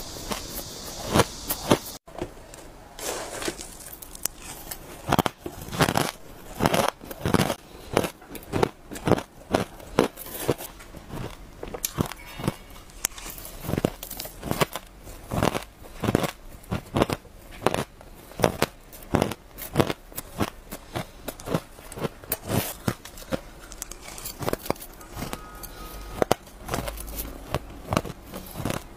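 Close-up crunching of frozen shaved ice as it is bitten and chewed, a rapid run of crisp crunches at about one to two a second.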